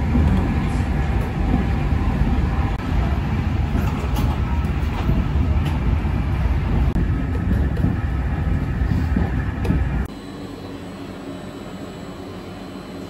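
Inside a moving passenger train: a steady low rumble of the wheels on the rails, with occasional clicks. About ten seconds in it cuts off abruptly to the much quieter steady hum of a train standing at a platform.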